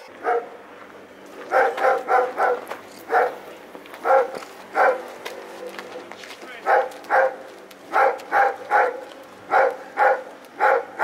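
German shepherd barking repeatedly, in quick runs of two to four loud barks separated by short pauses.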